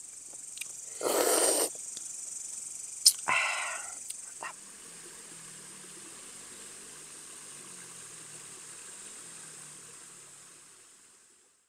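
Crickets chirping in a steady high drone, with two short noisy bursts and a few clicks in the first few seconds; the sound fades out near the end.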